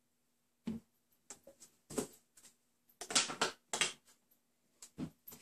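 A rubber spatula scraping and tapping the inside of a stainless steel stand-mixer bowl, several separate clicks and knocks about a second apart with a short scraping cluster a little past the middle.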